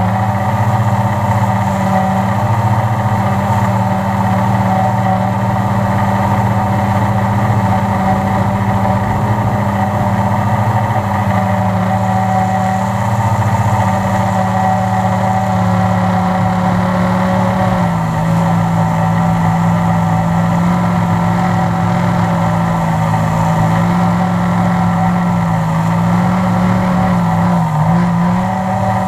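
Multirotor drone's electric motors and propellers humming steadily, picked up by the camera mounted on the drone. The pitch dips slightly about two-thirds of the way in and wavers briefly near the end as the throttle changes.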